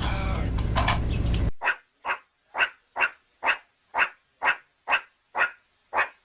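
A dog barking about ten times in an even rhythm, roughly two barks a second. Before that comes a noisy stretch with voices over a low hum, which cuts off after about a second and a half.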